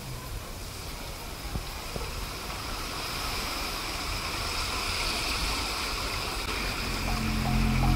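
Floodwater surging and sloshing around the wheels of a car driving slowly through a flooded street, growing louder as the car comes by. Music comes in near the end.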